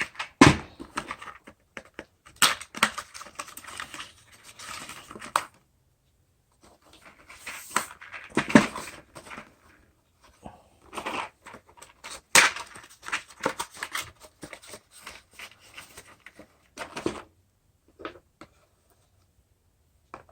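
Handling noise from loose 9mm cartridges being moved about and set down: sharp clicks and knocks among bursts of scraping and rustling, with a pause about six seconds in. It mostly stops about seventeen seconds in, leaving a few faint clicks.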